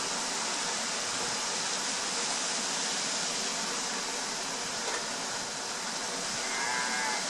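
Strong wind blowing, a steady rushing hiss with no let-up. A brief faint high call sounds near the end.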